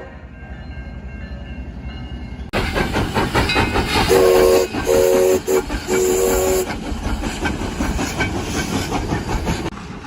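Passing train with rail noise, then louder, and about four seconds in its horn sounds three short blasts of several steady tones over the rumble.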